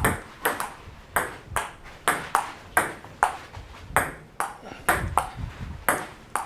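Table tennis rally: the ball clicking off paddles and the table in a steady back-and-forth, about two to three hits a second.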